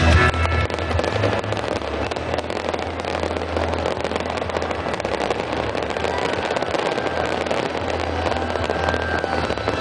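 Fireworks going off in a rapid, continuous stream of crackles and pops.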